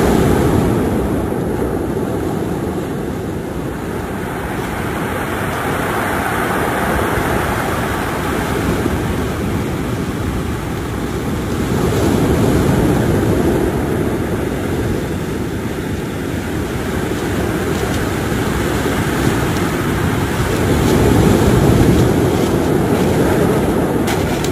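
Ocean surf breaking on a cobble beach: a steady rushing that swells and fades every several seconds as the waves come in.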